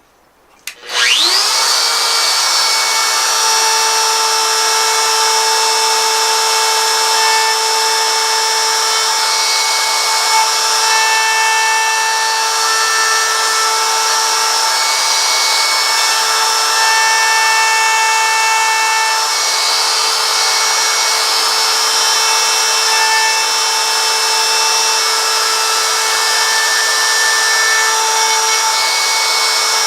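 A small high-speed rotary carving tool spinning up about a second in, then running with a steady high whine while it carves letters into a wooden sign.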